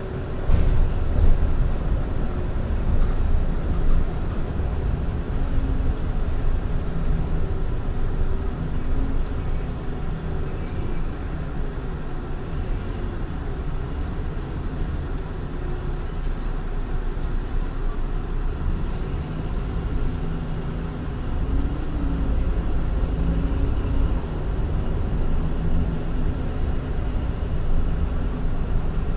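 MAN Lion's City LE Ü bus with a D0836 EEV six-cylinder diesel and ZF Ecolife automatic gearbox, running under way, heard from inside the passenger cabin ahead of the rear axle; the engine note rises and falls. A knock comes about half a second in.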